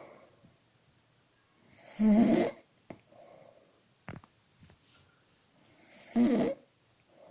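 A woman snoring: two loud snores about four seconds apart, with softer breathing between them.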